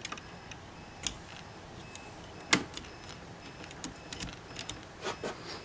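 A few faint clicks and taps from a hand working a home circuit breaker panel, pressing a breaker's push-to-test button, with one sharper click about two and a half seconds in. With the power out, the test does nothing and the breaker does not trip.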